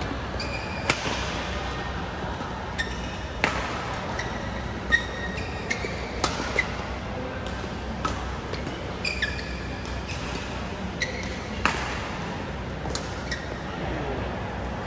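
Badminton rally: sharp racket strikes on a shuttlecock every one to two seconds, with short squeaks of shoes on the court mat between them.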